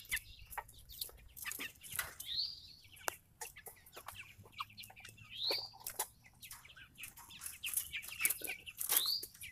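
Red Ranger broiler chickens clucking, with a high rising call three times, about 2, 5.5 and 9 seconds in. Short soft clicks and taps are scattered throughout.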